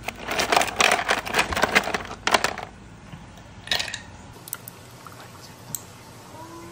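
Ice cubes clattering and rattling as a hand rummages in a freezer drawer full of ice around a glass bottle, for about two and a half seconds. Another short clatter follows a little before 4 s, then a few light clinks.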